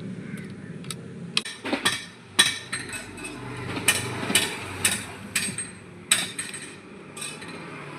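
Metal tools and engine parts clinking and tapping irregularly, about two sharp knocks a second, while a scooter engine's timing-chain parts are fitted and tightened by hand.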